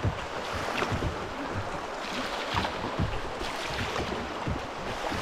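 Shallow river rapid rushing over rocks, with water slapping against kayak hulls in irregular low knocks.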